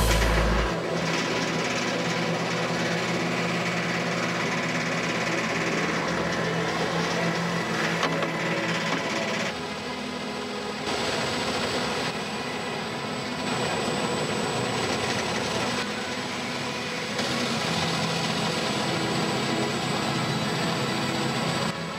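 Grape-processing machinery running steadily at the crush pad: the sorting table and conveyor under the destemmer give a continuous mechanical whirr and rattle. The level shifts a few times.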